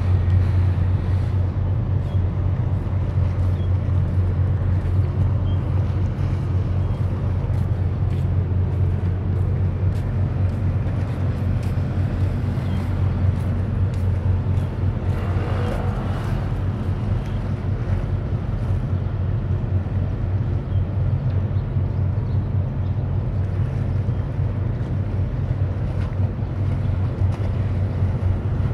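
Steady low drone of a multi-purpose offshore support vessel's engines as it moves across the harbour, under a haze of wind and water noise.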